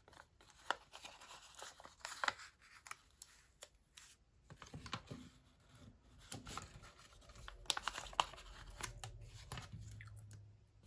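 Paper sticker sheets rustling and stickers being peeled off their backing, with scattered light clicks and rubs as fingers press them onto a paper planner page.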